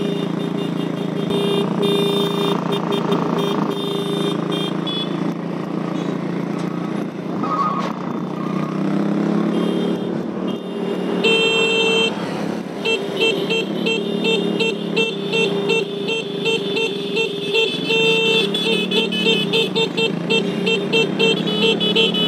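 Vehicle horn honking over moving motorcycle and car traffic in a convoy: short runs of honks at first, then rapid, regular pulsing honks through the second half. Engine pitch rises and falls a few times underneath.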